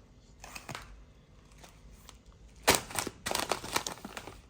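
Plastic grocery packaging, a 2 kg bag of basmati rice, rustling and crinkling as it is handled, with a short burst of crackling and clicks from about two and a half to four seconds in.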